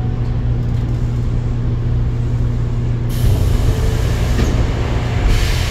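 Interior running noise of an Osaka Metro 22 series subway car: a steady low drone with a few steady tones. A high hiss joins about three seconds in and swells again near the end.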